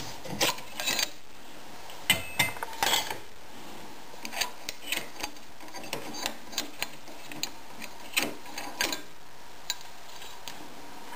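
Irregular metal clicks, knocks and scrapes from working a 15 mm copper heating pipe in a homemade steel pipe bender, with a louder cluster about two to three seconds in.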